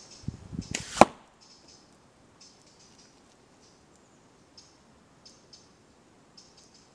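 Slingshot shot: a few dull low thumps, then one sharp crack about a second in as the shot is released. After that only faint, short, high chirps now and then.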